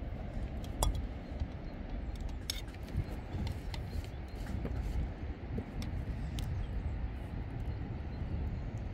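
Wind rumbling on the microphone, with scattered clinks of a metal spoon against a metal cooking pot as noodles are ladled out.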